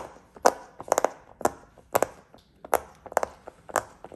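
Whale-shaped silicone pop-it fidget toy being pressed bubble by bubble, a crisp pop about twice a second, some in quick pairs.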